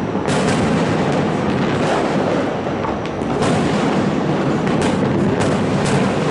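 Fireworks display: a continuous din of shells bursting and crackling, with about six sharper bangs standing out over it.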